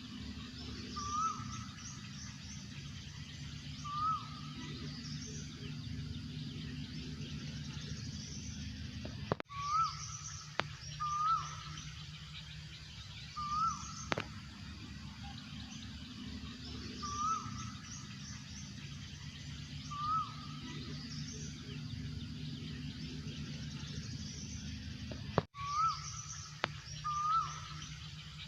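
Asian koel calling over and over, each call a short rising note, repeated every two to three seconds. Thinner, higher chirps from other birds and a steady low hum run underneath.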